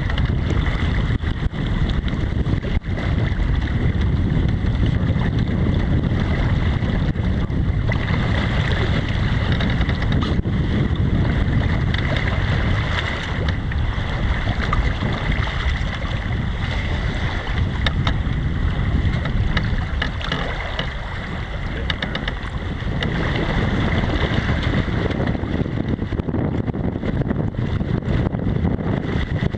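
Strong wind buffeting the microphone over the steady rush of water along a small sailboat's hull as it sails in a 15–20 mph breeze.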